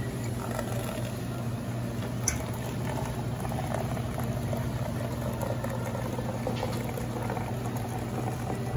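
Schaerer commercial coffee machine dispensing coffee in a thin stream into a paper cup, liquid pouring and splashing over a steady low hum. A single click about two seconds in.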